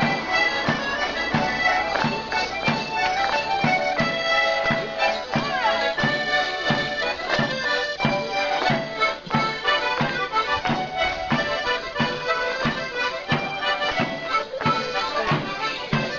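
Live morris band of piano accordion, melodeons and drum playing a lively traditional dance tune, with a steady beat of about two strokes a second.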